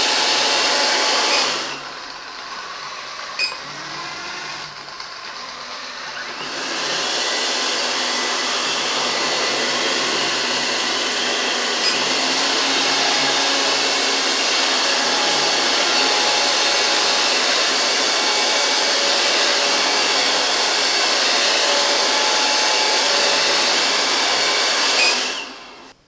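GRUNDIG VCR 2330 robot vacuum cleaner running its suction fan, a steady whooshing motor noise. It drops to a quieter suction level about a second and a half in and steps back up to the stronger suction setting around six and a half seconds in. A short beep sounds about three and a half seconds in, and the motor cuts off just before the end.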